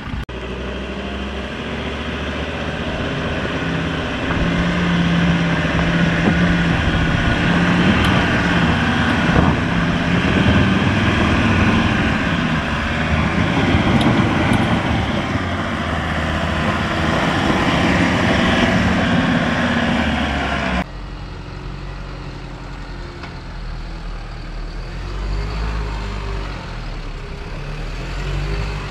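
Ford Everest's diesel engine working hard under load up a rocky climb, its wheels spinning and scrabbling on loose dirt and stones. About 21 seconds in the sound cuts abruptly to the quieter, deeper running of an Isuzu NPS 75-155 truck's turbo-diesel as it climbs.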